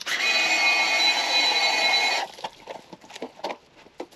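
Small electric pressure washer running with a steady whine over the hiss of its spray, cutting off abruptly about two seconds in; a few faint clicks follow.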